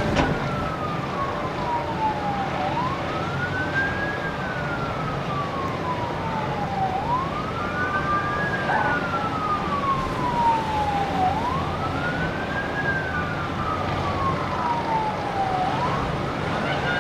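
Emergency vehicle siren in a slow wail, each cycle climbing quickly and then sliding slowly down, about four times over, with a steady low rumble underneath.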